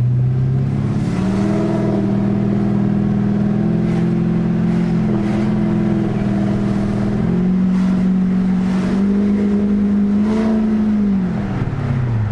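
Holden R8 Clubsport's 5.7-litre LS1 V8, fitted with a new Comp Cams camshaft, pulling away on a drive: the engine note climbs about a second in and holds, drops around seven seconds in, rises again, then falls away near the end as the car slows.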